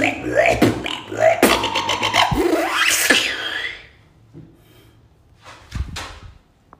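Human beatboxing: a fast, dense run of mouth-made kick, snare and click sounds with vocal bass, at a practised 'one year' skill level, stopping about four seconds in. After that it goes quiet apart from a few soft knocks.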